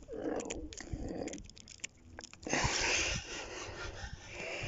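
Clicks and handling noise from a baitcasting reel and rod during a retrieve, then a steady breathy rush of noise from about two and a half seconds in.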